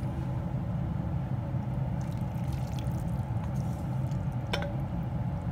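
Thin cooking liquid and stir-fried morning glory poured from a pot into a bowl, scraped out with a wooden spatula, with a light knock near the end. A steady low hum runs underneath.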